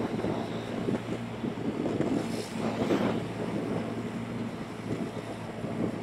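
Motorbike riding along at a steady pace: the engine's steady hum under wind buffeting on the microphone.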